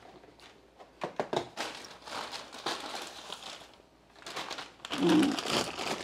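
Plastic bags crinkling and rustling in irregular handling as bagged vegetables are packed into a fridge's vegetable drawer. A short voice-like sound comes about five seconds in.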